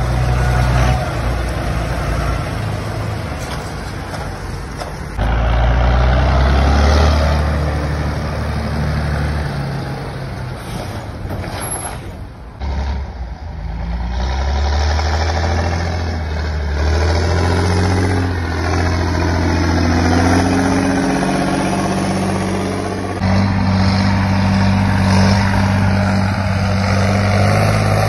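Fendt 614 LSA Turbomatik tractors' six-cylinder turbo diesel engines running hard while hauling big trailers, a deep steady engine drone. The drone jumps in level several times, is briefly fainter about halfway through, and swells in pitch as a tractor passes between about 15 and 21 seconds in.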